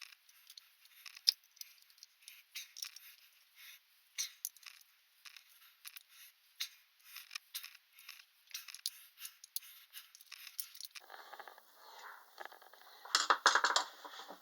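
Irregular light metallic clicks and taps of small hand tools and screws being worked on an eBike drive motor during gear fitting. Near the end they give way to a fuller scraping rustle, loudest about two seconds before the end.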